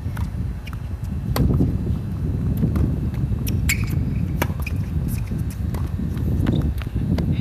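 Tennis ball struck back and forth by rackets and bouncing on a hard court during a rally: a series of sharp pops, loudest about a second and a half in and again around four seconds. Steady wind rumble on the phone's microphone runs underneath.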